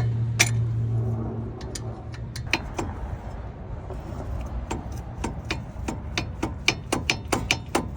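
A hand ratchet wrench clicking on a 14mm brake caliper bolt: a run of sharp metallic ticks that quicken to about three or four a second near the end. A steady motor hum runs under the first second and a half, then stops.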